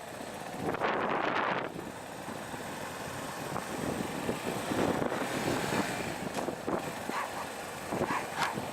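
Outdoor rushing noise, wind on the microphone, with a louder surge about a second in and scattered clicks.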